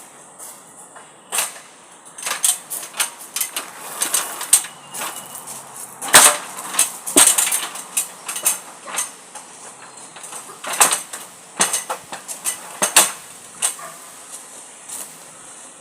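Irregular clicks, knocks and light clatter of hard parts being handled and fitted during a security camera installation, loudest and busiest about six to seven seconds in.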